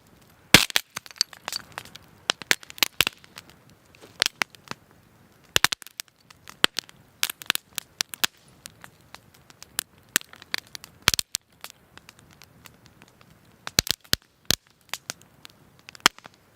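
Campfire crackling with frequent sharp, irregular pops and cracks, some in quick clusters, from a fire built on rocks that keep cracking and exploding in the heat.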